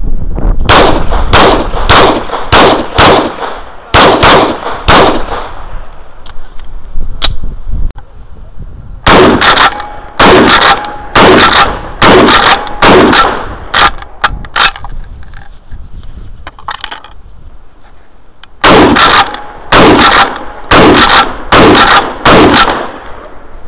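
Semi-automatic 12-gauge shotgun with a box magazine, fired in three quick strings of about eight shots each, roughly two shots a second, with pauses between the strings. Each shot is sharp and loud with a short echo after it.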